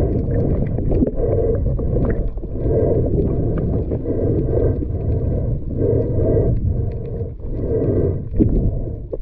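Muffled underwater rumble of water rushing past a submerged action camera while swimming, swelling in surges about once a second.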